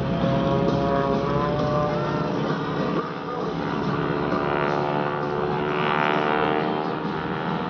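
Piston engines and propellers of aerobatic biplanes flying overhead: a continuous drone whose pitch shifts as the aircraft manoeuvre.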